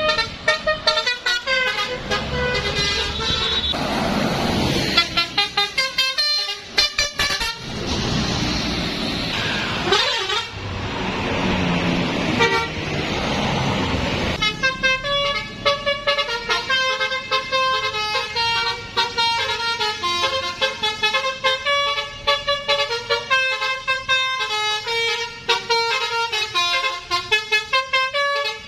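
Telolet Basuri multi-tone bus horn playing quick tunes of short stepping notes. For several seconds in the first half, passing bus engine and road noise rise over it, and from about halfway on, the horn plays a long, fast run of notes.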